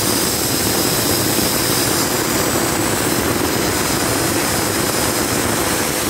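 Black & Decker HD555K 550 W corded hammer drill running steadily at full speed with no load, its motor and chuck spinning freely in the air.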